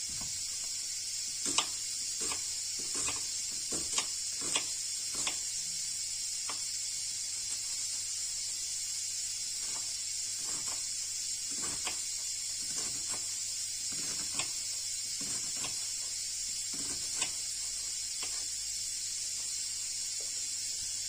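Kitchen knife chopping an onion on a wooden cutting board: irregular knocks of the blade striking the board, about one a second, over a steady background hiss.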